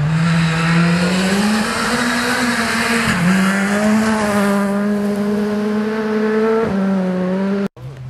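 Rally car running at high revs as it approaches and passes close by on a gravel stage, over a strong rushing hiss. The engine note climbs over the first two seconds and drops sharply twice, about three seconds in and again near seven seconds. The sound cuts off abruptly for a moment near the end.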